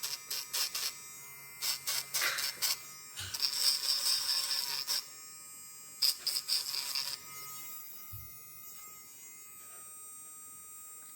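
Casfuy battery dog nail grinder running steadily, its rotary grinding drum touching a dog's nail in a series of short scratchy grinds, with one longer grind about three seconds in. After about seven seconds the grinding stops and only the motor's quieter whine continues.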